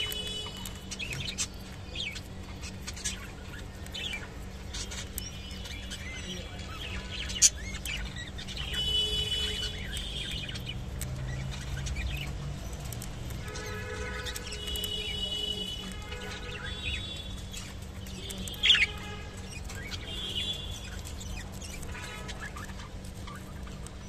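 Budgerigars chirping and chattering in short calls, with two sharp, louder chirps about 7 seconds and 19 seconds in.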